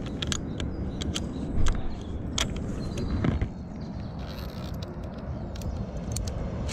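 Metal carabiners clicking and clinking against a steel safety cable as they are unclipped and moved along it, over a steady low rumble, with one louder dull knock about two seconds in.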